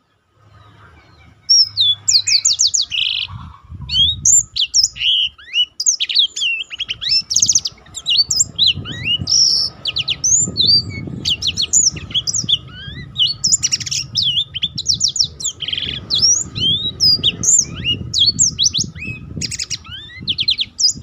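Black-throated canary singing a long, unbroken rolling song of fast trills and quick rising and falling whistles, starting about a second and a half in.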